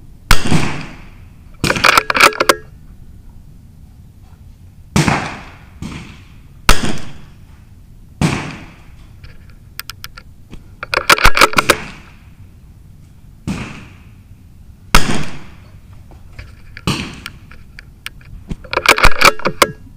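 Repeated .22 rimfire rifle shots on a benchrest range: about a dozen single sharp cracks at irregular intervals, with three quick clusters of cracks, near the start, in the middle and near the end.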